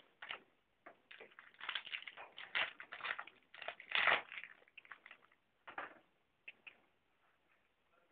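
Trading card pack wrapper being torn open and crinkled, in irregular crackling bursts that thin out to a few soft rustles after about six seconds.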